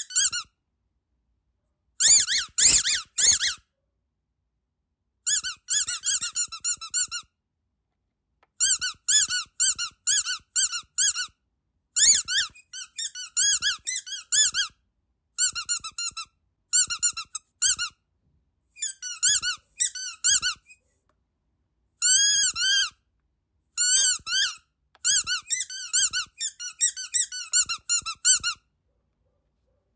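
Rubber duck squeaky dog toy squeezed in quick runs of high squeaks that bend up and down in pitch. Each run lasts a second or two, with short silent gaps between.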